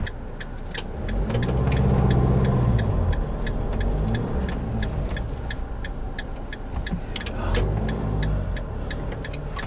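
Motorhome engine heard from inside the cab, its note rising as it pulls away through a roundabout about a second in and again near the end, with the turn indicator ticking steadily.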